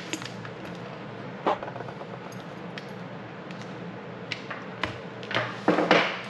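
Handling noises from a motorcycle helmet and intercom headset wire: a few scattered light clicks and knocks while the wire is worked into the helmet liner, then a louder rubbing bump near the end as the helmet is turned round.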